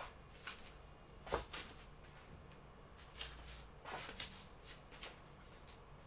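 Faint scattered rustles and light knocks from a person shifting on an exercise mat while doing bird dog exercises, with one sharper knock about a second in and a quick run of rustles near the middle.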